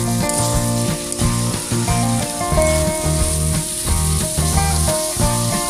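Duck meat frying in oil in a wok, sizzling as it is stirred with a spatula, over background music with a bass line.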